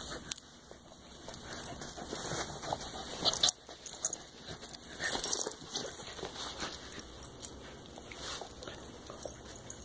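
Australian shepherd–corgi mix dog playing excitedly, rolling and scrabbling against a fabric dog bed on carpet: irregular rustling and scuffling, with dog noises mixed in and a couple of sharp knocks.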